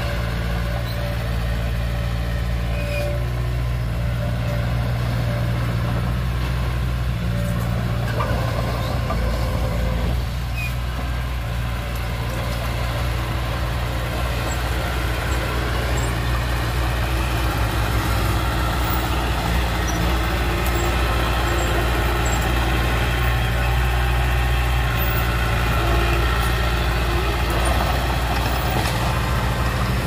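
Bulldozer's diesel engine running steadily as the machine pushes earth, with brief faint squeals now and then.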